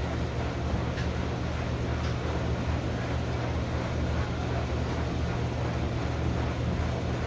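IPSO WE165 washer-extractor's drive motor turning the drum clockwise with a steady low hum, working again now that the bad contactor has been replaced.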